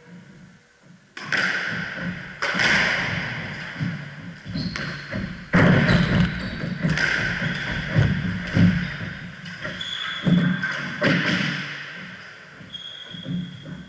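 Squash rally: the ball is struck hard by rackets and smacks off the court walls about eight times, each hit echoing around the court, with shoes squeaking on the wooden floor between hits. The hits stop about eleven seconds in as the rally ends.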